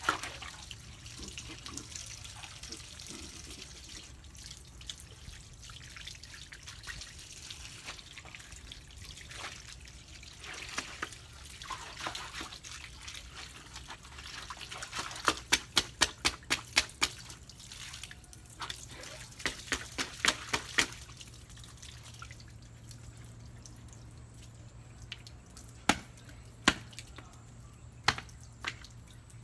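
Water running from a garden hose and splashing on a tiled floor. Past the middle comes a quick run of sharp clicks, about three a second for several seconds, with a few more near the end.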